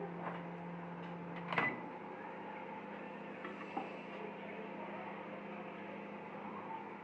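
Microwave oven running with a steady low hum, cut off about one and a half seconds in by a sharp click as the door is opened. Low room noise follows, with a small knock a couple of seconds later.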